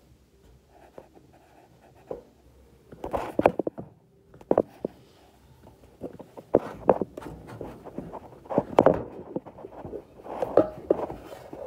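Hands and forearm rubbing and knocking against the phone that is recording, heard as several short bursts of scratching and clicks with quiet gaps between.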